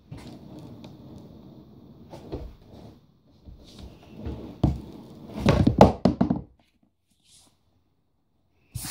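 A plastic penny board's wheels rolling over a wooden floor with a low rumble, broken by thumps and clacks as the board and feet hit the floor, the loudest about five and a half to six seconds in. The rolling stops about six and a half seconds in, and there is a short burst of noise near the end.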